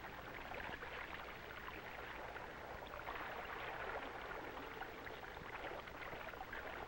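Faint crackling hiss over a steady low hum: the background noise of an old film soundtrack.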